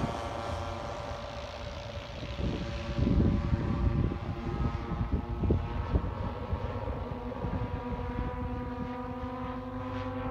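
Twin-engined P-38 Lightning droning as it flies away overhead, a steady engine note whose higher tones fade after the first few seconds. Gusts of wind buffet the microphone a few seconds in.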